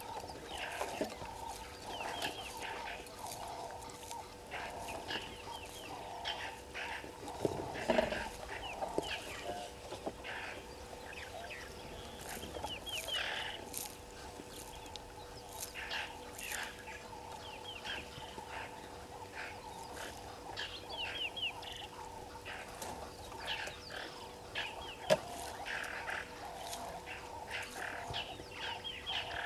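Birds calling in the bush, short high chirps repeated throughout. A dull knock comes about eight seconds in and a sharp click near twenty-five seconds.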